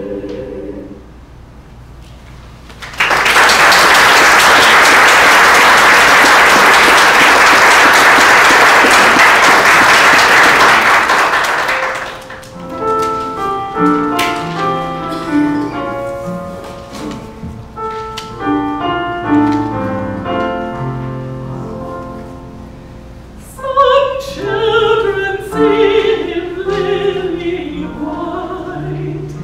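A choir's last chord fades, then the audience applauds for about nine seconds. A piano introduction follows, and near the end a woman's operatic soprano voice comes in, singing over the piano.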